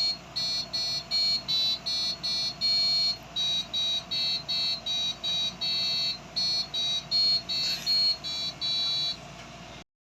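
Piezo buzzer driven by an Arduino Uno playing a melody of short, high-pitched beeping notes, some held longer, at about two to three notes a second. It stops abruptly near the end.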